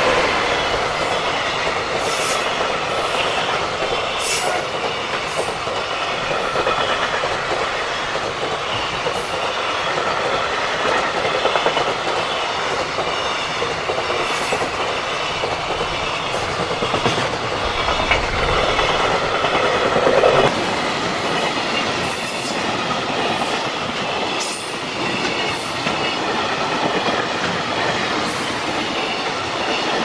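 Long JR Freight container train hauled by an EF210 electric locomotive passing close by, the locomotive at the start and then a long line of container wagons: a steady rolling rumble of steel wheels on rail with repeated short, high-pitched wheel squeals.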